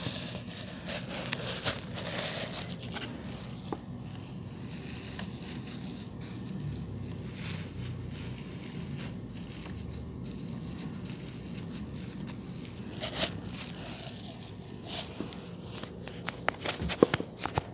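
Plastic sheet crinkling and tearing as it is handled and wrapped, with scattered sharp clicks that come thicker about thirteen seconds in and near the end.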